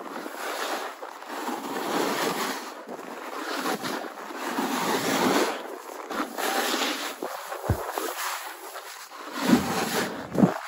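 Skiing edges scraping and hissing over packed snow during a fast descent. The sound swells and fades every second or two with each turn, over wind rushing on the microphone, and a couple of dull bumps come in the last few seconds.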